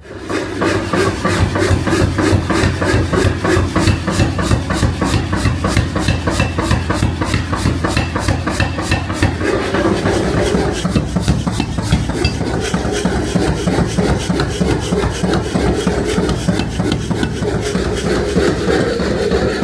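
Steel being abraded: a continuous rough rasping made of fast, even strokes over a steady low hum, its tone shifting about ten seconds in.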